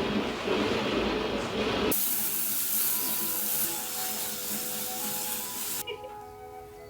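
Water spraying with a steady hiss over soft background music. The spray changes about two seconds in and stops shortly before the end.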